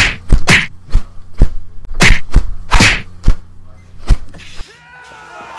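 A rapid run of about ten punch and slap impacts, sharp whacks coming at uneven intervals, that stop about four seconds in.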